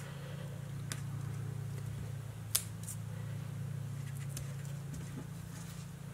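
Faint ticks and light rustles of small cardstock pieces being handled and pressed into place on a paper craft, with one sharper tick about two and a half seconds in, over a steady low hum.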